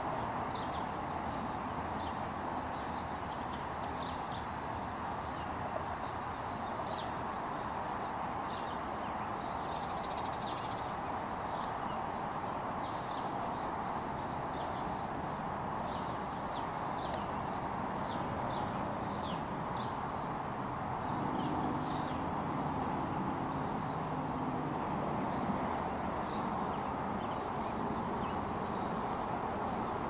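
Small songbirds chirping in quick, repeated short notes over a steady rush of flowing creek water. A faint low hum joins for a few seconds past the middle.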